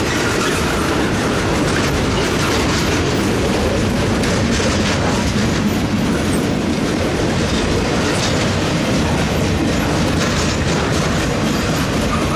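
Freight train of flatcars loaded with large pipe rolling past at close range: a loud, steady noise of steel wheels on rail with scattered clicks.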